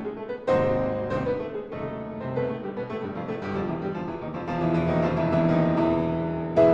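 Piano music: notes and chords struck one after another and left to ring and fade.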